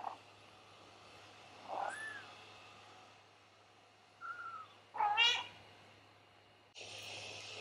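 Tiny kittens mewing: four short, high calls, the loudest about five seconds in.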